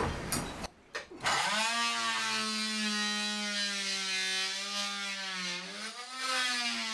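Corded oscillating multi-tool starting about a second in and running with a steady whine, its pitch sagging briefly twice as the blade loads up against the wooden bulkhead frame.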